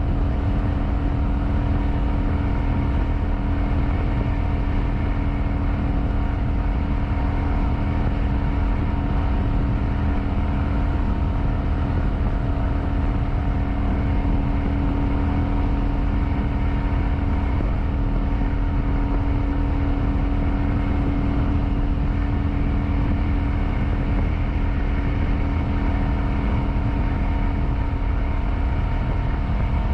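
Kawasaki Vulcan 900's V-twin engine running steadily at a constant cruising speed, with heavy wind rumble on the microphone.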